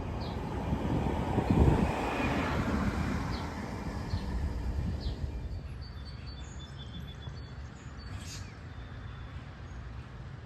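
A vehicle rumbles past, loudest about a second and a half in, then fades away. Birds chirp with short, high calls throughout.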